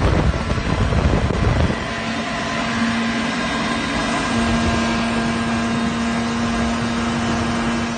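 Polaris Sportsman XP 1000 ATV engine running at a steady pitch as the quad drives away across snow. Wind buffets the microphone for the first couple of seconds.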